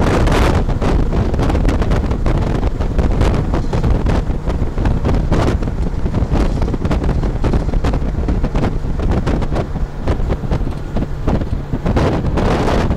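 Strong wind buffeting the microphone, a loud low rumble that rises and falls unevenly in gusts.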